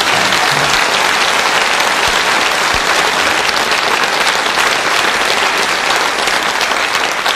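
Studio audience applauding, steady and dense throughout, with a faint trace of closing music underneath in the first second.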